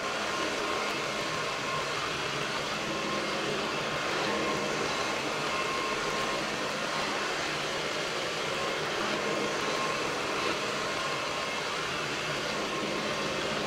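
Ecovacs Deebot T8 Power robot vacuum running as it drives across a tiled floor: its suction fan and brushes give a steady whir with a faint, even whine.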